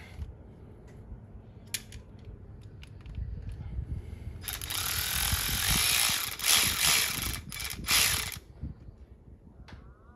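Hand ratchet clicking in quick runs as a fastener is tightened, loudest and densest from about four and a half to eight seconds in. Scattered knocks of tool handling come before it.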